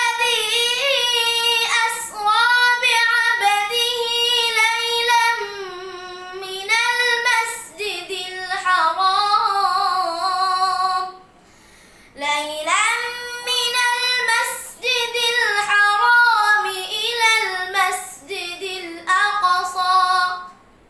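A boy's voice reciting the Quran in melodic tilawat, long ornamented phrases that glide and waver in pitch, with a short pause about halfway through.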